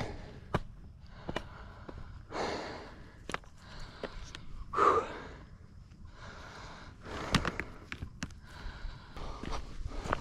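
A hiker breathing as he walks: a few loud breaths, the loudest about halfway through, among scattered sharp clicks and scuffs of footsteps on rock and a dirt trail.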